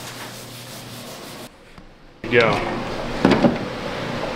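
A cloth rubbing dark wood stain into a wooden tabletop, a steady dry rubbing. It stops about a second and a half in, and a little after two seconds a louder creaking scrape with a falling squeak follows.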